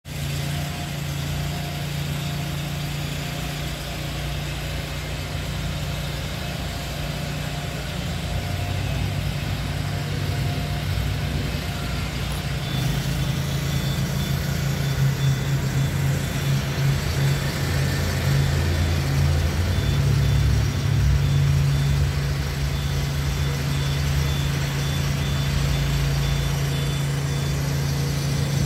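An engine running steadily at idle: a low, even drone that gets a little louder about halfway through.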